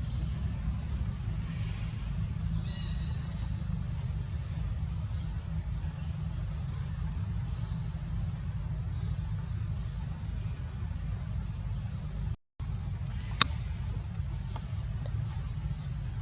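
Outdoor ambience: a steady low rumble with short high chirps recurring about once a second. A brief dropout comes about twelve seconds in, followed by a single sharp click.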